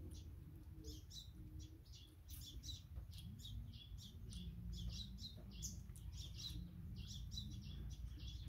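Small birds chirping, many short high chirps coming several times a second throughout, over a low background rumble.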